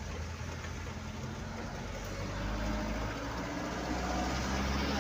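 A vehicle's engine running steadily, heard from inside its cab, growing a little louder about halfway through.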